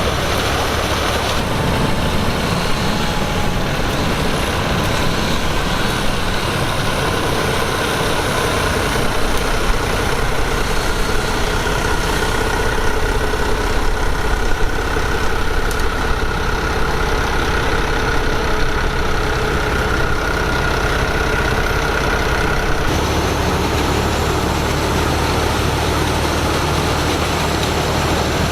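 Heavy diesel machinery running steadily and loudly, with a faint steady whine through the middle stretch. The low-end sound changes abruptly about a second and a half in and again near the end.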